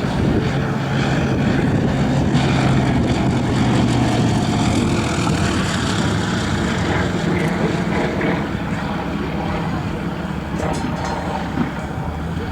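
A Yakovlev Yak-50/Yak-52's propeller and nine-cylinder M-14P radial engine running steadily, loudest over the first half and easing off a little later.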